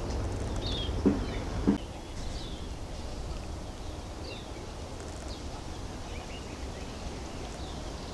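Small birds chirping in the background, short falling chirps about once a second, over a low steady rumble. Two brief low thumps come about a second in.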